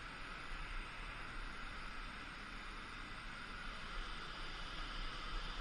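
Steady rush of water pouring over a river spillway.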